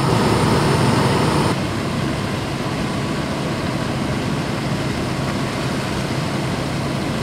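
Fire truck diesel engines running steadily at the fire scene, a continuous low hum and rumble. About a second and a half in, the sound changes abruptly and drops a little in level.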